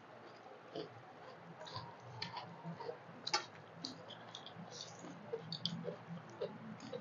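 Eating by hand: fingers mixing rice and dal on stainless steel plates, and mouths chewing, giving soft, irregular clicks and smacks.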